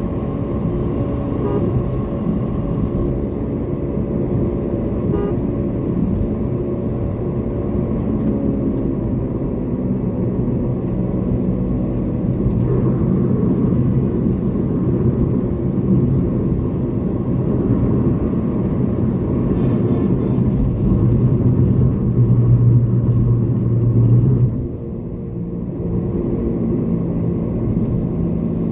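Toyota Corolla driving, heard from inside the cabin: a steady mix of engine hum and road noise. The engine note grows stronger a few seconds before the end, then drops off suddenly about 24 seconds in, as the throttle is let off.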